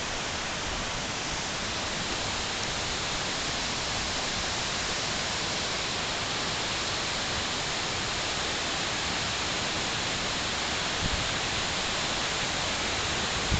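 Waterfall's rushing water: a steady, even hiss.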